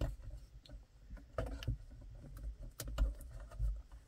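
Fiddly handling noises as a wiring connector is worked into the back of a car's rear-view mirror: low bumps and rubbing of plastic and cable, with a few light clicks.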